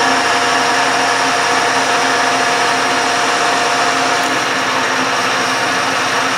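Metal lathe running steadily while the cutter feeds along the Z axis, taking a turning cut to form a flange; a steady whine in the machine noise drops away about four seconds in.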